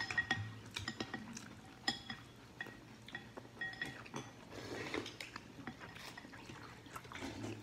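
Chopsticks and a spoon clinking and tapping against porcelain bowls during a meal of noodle soup, in scattered light clicks, some with a brief ring.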